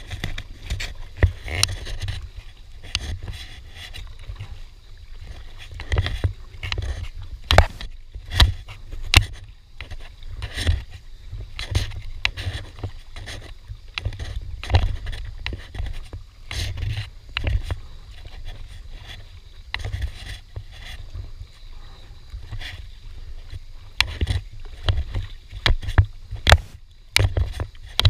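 Double-bladed aluminium paddle dipping and splashing as an Itiwit inflatable kayak is paddled, with irregular sharp clicks and knocks over a low rumble.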